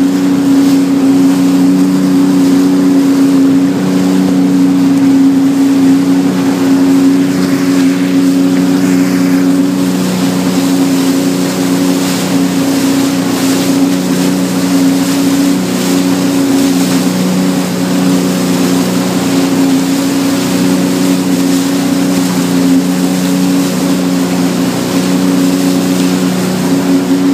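Sea-Doo personal watercraft's engine running at a steady, unchanging pitch while underway, with the hiss of spray and wind over it.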